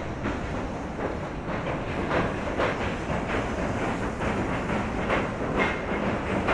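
Tobu line train crossing the Sumida River railway bridge, its wheels clattering over the rail joints in a rapid, continuous run of clicks over a low rumble, growing louder toward the end.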